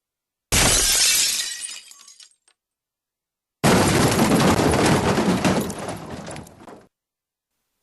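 Two separate glass-breaking sound effects with dead silence between them: a sudden shatter about half a second in that fades away over about two seconds, then a longer breaking crash full of small crackles that lasts about three seconds and cuts off suddenly.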